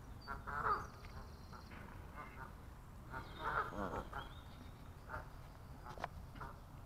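Canada geese calling at close range: a series of short honks, the strongest about a second in and again about three and a half seconds in.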